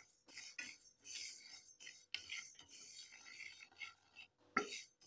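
Wooden spatula stirring and scraping pearl millet grains as they dry-roast in a frying pan: faint, uneven strokes of dry rustling and scraping, with one sharper knock near the end.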